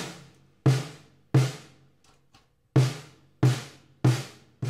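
Single strokes on a 6.5 by 14-inch steel snare drum: about seven evenly spaced hits, each dying away quickly, with one longer pause midway. Two tension lugs have been loosened, one fully and one about halfway, which detunes the drum to a pretty low, dead sound.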